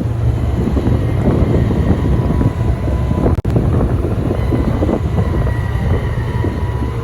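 Ferry's diesel engines running with a steady low rumble, cut by a brief dropout about three and a half seconds in.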